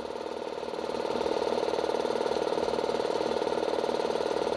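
150 litre electric air compressor running, its motor and pump giving a steady, quiet hum with a fast even pulse that builds slightly about a second in and then holds.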